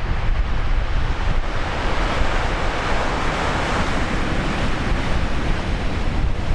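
Large typhoon-driven surf crashing on the shore, a wave breaking and surging loudest about two seconds in, with wind buffeting the microphone as a low rumble.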